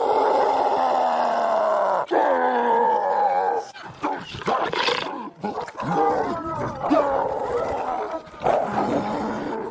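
Creature sound effect: a string of animal-like roars and growls, each a wavering pitched call, joined by abrupt cuts.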